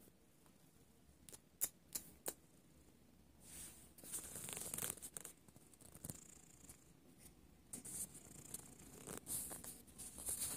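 Close rustling and scratching in short bouts, with a few sharp clicks early on.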